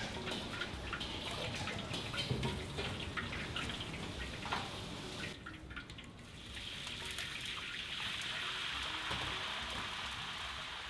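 Kitchen sounds: scattered light clicks and knocks over running water, then after a short break about six seconds in, a steady sizzling hiss.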